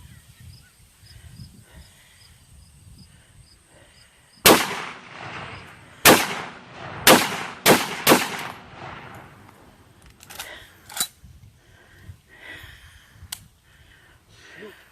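Gewehr 43 semi-automatic rifle firing five shots, the first about four and a half seconds in and the other four in quick, uneven succession, each with a ringing echo. A few fainter sharp cracks follow.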